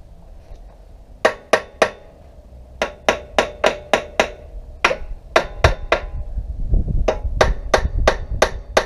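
Hammer tapping repeatedly on a seized exhaust header nut of a Honda CBF 125 to break it loose, the nut stuck fast from heat. Sharp metallic strikes, each with a brief ring, come in quick runs of about four a second with short pauses between runs, starting about a second in.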